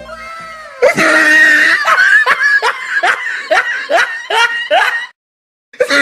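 Loud, high-pitched laughter, a run of falling laughs at about two a second. It cuts off abruptly about five seconds in and starts again just before the end, as an edited-in laugh effect would.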